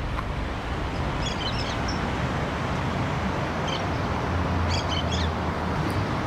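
Ambient background: a steady rumbling noise bed with a few short bird chirps scattered through it.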